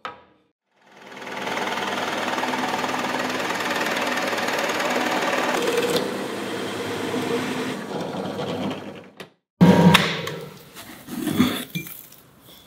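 Drill press boring into a beech block with a Forstner bit: motor and cutting bit running steadily for about eight seconds. It stops briefly, then a few loud knocks and scrapes follow near the end as the block is tipped off the table.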